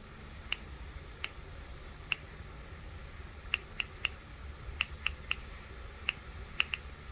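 Ignition sparks snapping across a spark tester fed by a Mercury outboard ignition coil: about a dozen sharp, irregularly spaced clicks over a faint low hum. The spark is the sign that the old distributor's trigger works.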